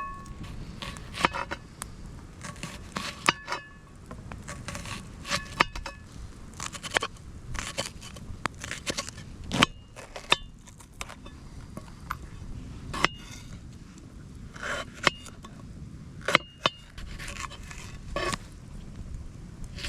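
Knife chopping vegetables on the back of a metal pan: irregular knocks, some followed by a brief metallic ring.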